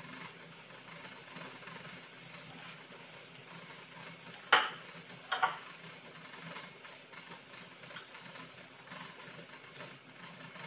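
Steady low hum of a kitchen appliance fan, with two sharp clinks of chopsticks against a dish or pan, the first about four and a half seconds in and the second a second later.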